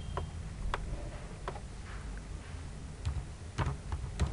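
Computer keyboard keystrokes: a handful of separate, unevenly spaced clicks as a command is typed, over a low steady hum.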